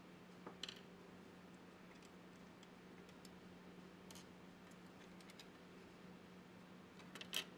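Near silence with faint clicks and taps of the plastic dust shroud pieces being handled and pulled apart: a couple about half a second in, one near the middle and the loudest few near the end, over a low steady hum.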